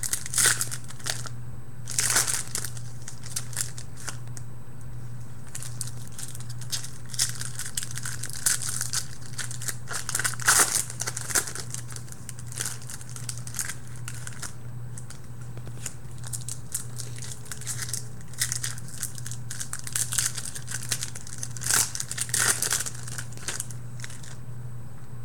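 Plastic Topps Platinum football card-pack wrappers being torn open and crinkled in the hands, in irregular bursts of crackling, over a steady low hum.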